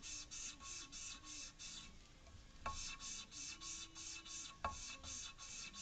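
An engine valve being hand-lapped into its seat with lapping paste: a fast, even, scratchy grinding, about five strokes a second, as the lapping stick is spun back and forth between the palms. The grinding stops briefly about two seconds in, and there are two sharp taps, one just before the three-second mark and one near the end.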